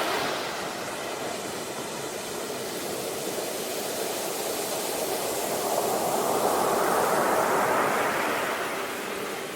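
Sea waves washing ashore: a steady rush of surf, with one wave swelling about halfway through and ebbing near the end.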